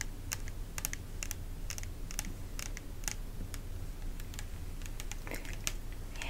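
Long fingernails tapping and clicking on a plastic astringent bottle in irregular sharp taps, about two or three a second, over a low steady hum.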